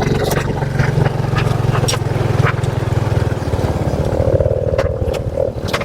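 Motorcycle engine running under way, with a few sharp knocks scattered through. The engine note eases off about three seconds in.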